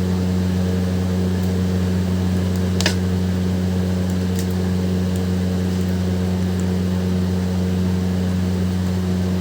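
A steady low electrical hum, as of a fan or motor running, unchanged throughout, with a single faint click about three seconds in.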